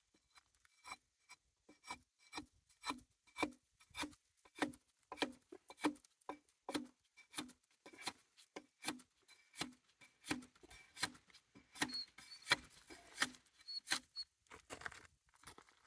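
Bark being scraped off a log with a hand tool in quick, evenly repeated strokes, about one and a half to two a second: stripping away bark full of crushed-granite grit before the log is sawn.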